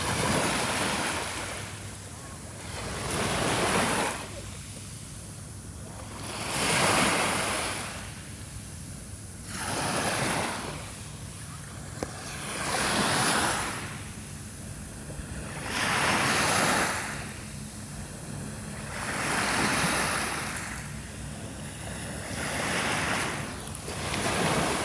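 Small, gentle sea waves breaking and washing up a shore, each swell rising and falling away about every three seconds.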